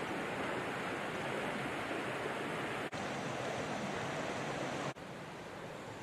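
Mountain stream rushing, a steady watery hiss. It drops out for an instant about three seconds in and again about five seconds in, and is a little quieter after the second break.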